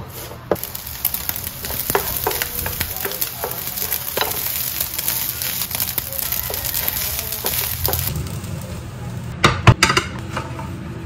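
Egg fried rice sizzling in a nonstick frying pan, stirred and scraped with a wooden spoon. A couple of knife chops on a bamboo cutting board open it, and a few sharp knocks come near the end.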